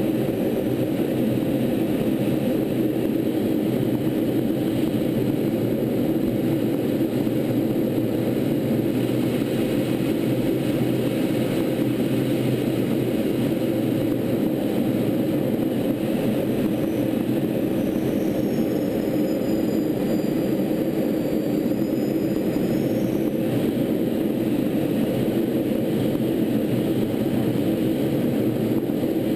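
Steady, unchanging in-flight noise of a T-38 Talon twin-turbojet trainer, airflow and engine drone heard from on board the aircraft.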